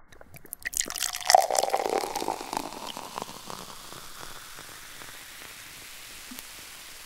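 A sudden burst of many sharp crackles and clicks, loudest about a second in, trailing off into a steady hiss.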